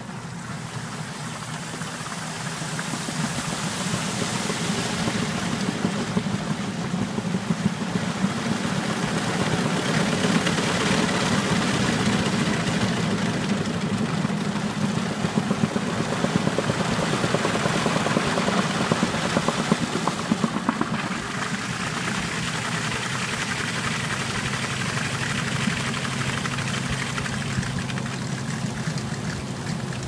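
Danby DWM17WDB portable top-load washer in its spin cycle: the motor runs steadily with a low hum while water rushes off the spinning tub. The sound builds over the first several seconds, holds, and eases slightly in the last third.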